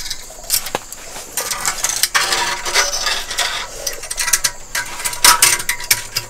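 Metal tongs clinking and scraping against the wire hooks that hold roast ducks inside a glazed clay jar oven, in irregular metallic clicks and rattles.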